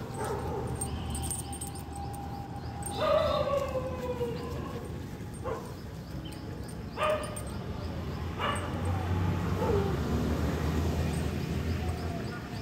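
A dog giving a few separate calls a couple of seconds apart: the first, about three seconds in, is drawn out for about a second and falls in pitch; the others are brief.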